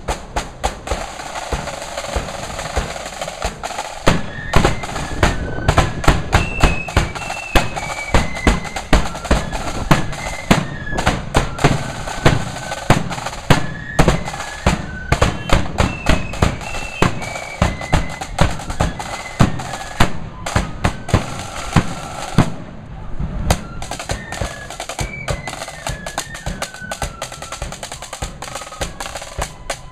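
Marching flute band playing a march: side drums and a bass drum beat out the rhythm, and the flutes' melody comes in about four seconds in. The flutes break off for a moment about two-thirds of the way through, then take up the tune again.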